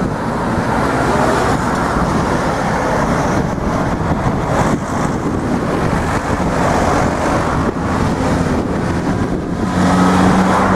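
Road traffic crossing a railway level crossing: cars and vans driving over the rails one after another, with a few brief knocks as tyres cross the rails. Near the end a vehicle close by adds a steady engine hum.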